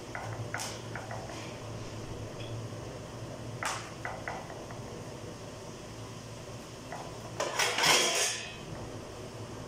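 Pots and dishes being handled: a few light clinks and knocks, then a louder clatter a little over seven seconds in, over a steady low hum.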